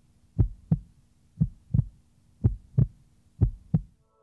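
A heartbeat sound effect played over the hall's sound system: paired low thumps in a lub-dub rhythm, about one beat a second, four beats in all.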